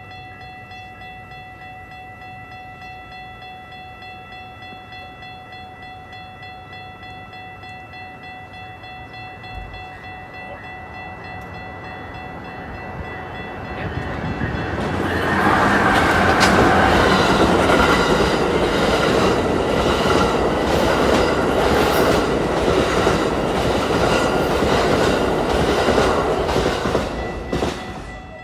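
Amtrak Empire Builder passenger train approaching and rushing past, its wheels clicking rapidly over the rail joints. The sound builds over a few seconds, stays loud for about thirteen seconds as the train goes by, then drops away quickly near the end.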